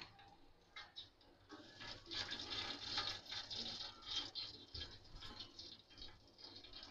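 Whole garam masala spices (cumin seeds, cinnamon sticks, cloves) sizzling and crackling faintly in hot oil in a steel pot while a spatula stirs them; the sizzle picks up about a second and a half in.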